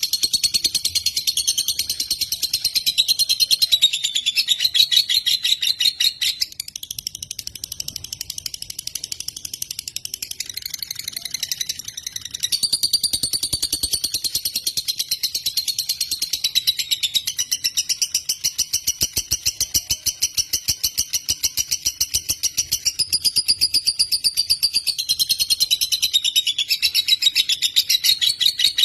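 Lovebird (Agapornis) singing a long, unbroken, high-pitched chattering trill of very rapid repeated notes, the drawn-out song that Indonesian keepers call 'teler'. It eases off for a few seconds in the middle, then comes back as strong as before.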